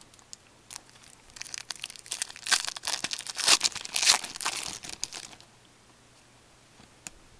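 A 2007-08 Fleer Ultra hockey card pack's foil wrapper is torn open and crinkled in the hands. The crackling begins about a second in, is loudest around three to four seconds, and stops a little after five seconds.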